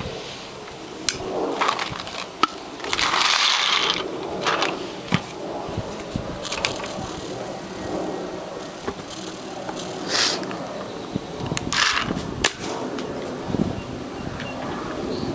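Handling noises: scattered clicks and knocks, with a few short hissing bursts. The longest burst lasts about a second, around three seconds in.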